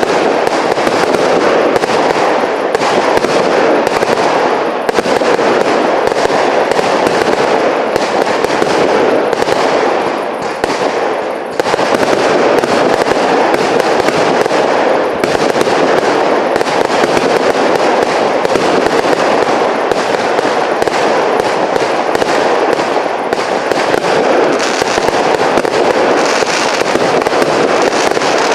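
A fireworks cake (compound battery) firing a dense, continuous barrage of shots and bursts, with a brief lull about ten seconds in.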